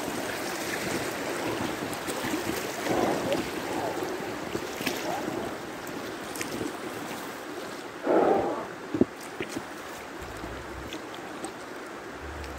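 Steady rush and lapping of river water around a Sevylor inflatable kayak riding down a shallow riffle, with two louder splashes about three and eight seconds in.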